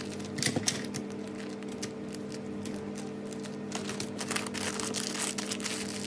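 Parchment paper crinkling and rustling as gloved hands fold it around a sandwich: a run of short crackles, loudest about half a second in. Steady background music plays underneath.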